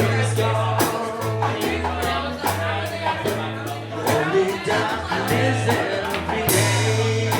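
Music with a steady beat and a walking bass line.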